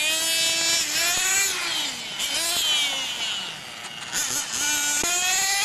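Small high-revving engine of a radio-controlled racing motorcycle, a high-pitched buzz whose pitch rises and falls as it accelerates and backs off through the corners. It drops away about three and a half seconds in, then rises again.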